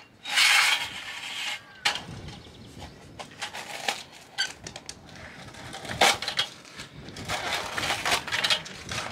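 Irregular metallic clicks, rattles and scrapes as a sheathed flexible hose with metal end fittings is handled and worked at by hand, with a longer scrape lasting about a second near the start.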